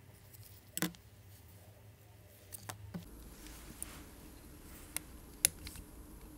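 Small sharp clicks and taps of watchmaker's tools working on a watch movement, about six spread over the few seconds, the loudest about five and a half seconds in, over a faint low hum.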